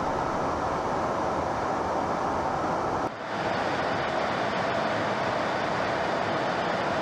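Steady in-flight rush of engine and airflow noise heard from inside an aircraft cabin, with a brief drop in level about three seconds in.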